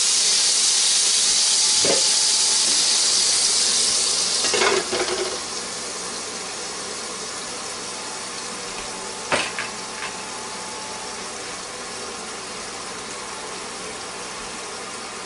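A spoonful of water hits the hot buttered Copper Chef pan around a frying egg, setting off a loud sizzling hiss that dies down after about four and a half seconds. A glass lid clatters onto the pan, and the egg goes on sizzling more quietly under it, with a single sharp click about nine seconds in.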